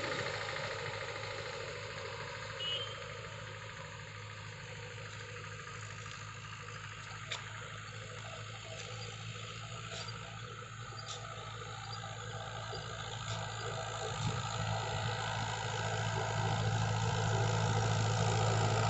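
Road traffic engines, motorcycles among them, running steadily as a low hum that grows louder over the last few seconds.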